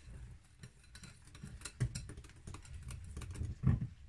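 Wire whisk clicking against a glass bowl as it beats vanilla into thick, freshly cooked pastry cream: a quick, uneven run of light ticks, with a few duller knocks.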